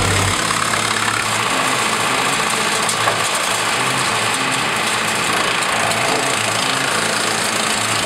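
Tractor engine running an OXXN PTO-driven wood chipper while leafy branches are fed through it: a steady engine drone under the rushing, crackling noise of the chipper chewing brush.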